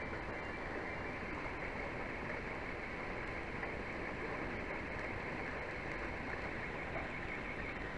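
Heavy storm rain falling steadily, an even hiss with no let-up.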